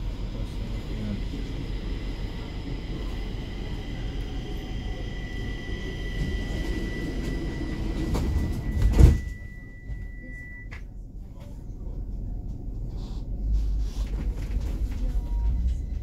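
Stockholm metro train standing at a platform with a low rumble and a steady high whine. About nine seconds in the sliding doors close with one loud thud, after which it is quieter, and near the end the train starts to pull away with a rising low rumble.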